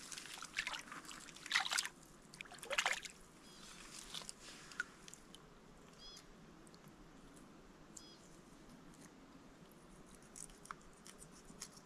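Small splashes and trickles of lake water as a fresh-caught trout is dipped and rinsed by hand at the water's edge, a few sloshes in the first three seconds, then only faint scattered drips.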